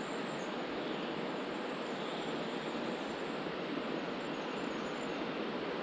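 Steady rushing of a shallow river's water running over stones.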